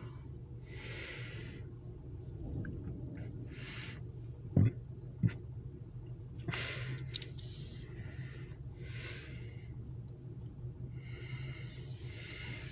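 A person breathing close to the microphone, one breath every two to three seconds, over a steady low hum. Two short sharp knocks come about four and a half and five seconds in.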